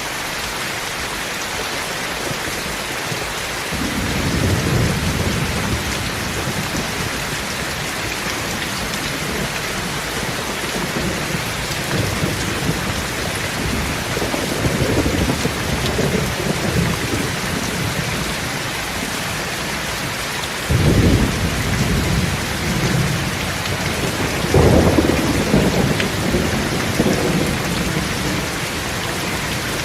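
Heavy rain falling in a steady hiss, with irregular low rumbles swelling and fading from about four seconds in, the strongest two about two-thirds of the way through.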